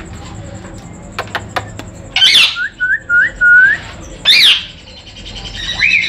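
Parrots calling: a few faint clicks, then a loud call, a run of four quick rising chirps, and a second loud call about two seconds after the first. Near the end a call rises and holds as a steady whistle.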